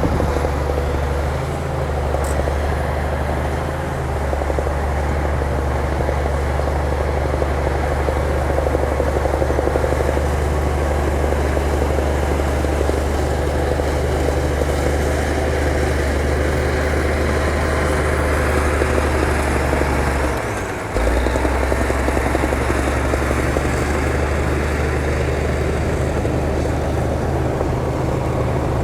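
Diesel engine of heavy earthmoving equipment, likely a bulldozer, running steadily with a deep low drone. The sound drops briefly about twenty seconds in, then comes back at once.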